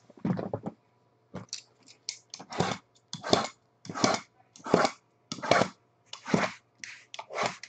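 Shrink-wrapped Topps Tier One baseball card boxes being slid, shuffled and set down on a table by hand: a run of short scrapes and knocks, roughly one every half to one second.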